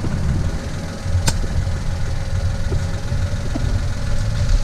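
A car engine idling steadily, with a single sharp click about a second in.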